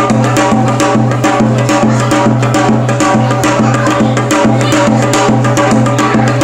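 Upbeat music with quick, even percussion strokes, several a second, over a steady low held note.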